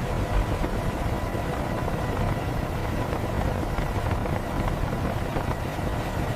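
Steady low mechanical rumble, like large engines or machinery running, with a faint steady hum above it.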